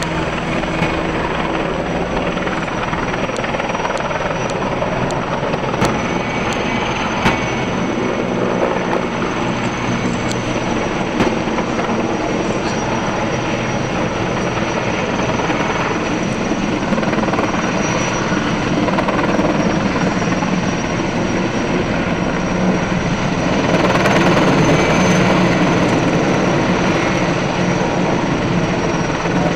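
Heavy-lift crane helicopter's rotor and turbine engines running steadily overhead while it carries a slung load. The sound swells a little near the end as it comes closer.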